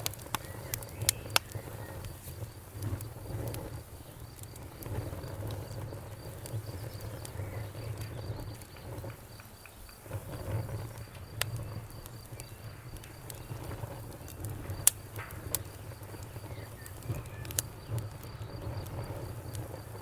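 Campfire crackling, with sharp scattered pops, the loudest about 15 seconds in, over a low steady rumble of the fire. A cricket chirps in a fast, even pulse in the background.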